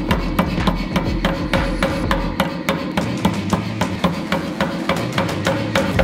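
Anyang self-contained air power hammer striking a glowing hot billet in quick, even blows, about five a second, as the bar is drawn out between the dies.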